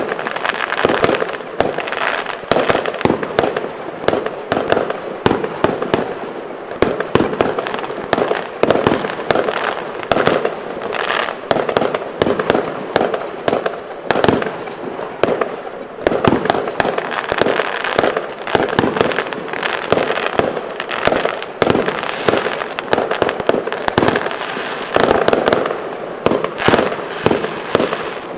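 Fireworks display with a dense, unbroken stream of crackling and sharp bangs, many shots a second, overlapping one another.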